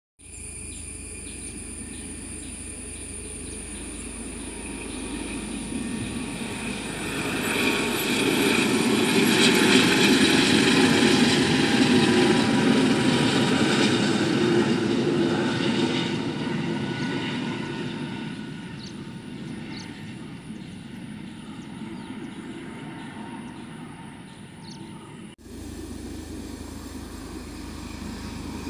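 Pawan Hans SA365N Dauphin twin-turbine helicopter flying past, its rotor and turbine noise swelling to a peak and then fading as it draws away. The sound cuts abruptly near the end, then resumes at a steady level as the helicopter is heard again.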